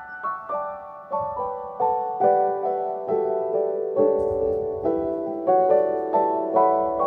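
Background piano music: a gentle melody of single struck notes, about two or three a second, stepping down in pitch through the first few seconds.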